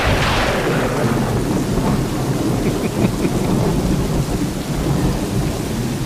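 Thunderstorm sound-effect recording: a thunderclap's crack fading over the first second into a long low rumble of thunder over steady rain.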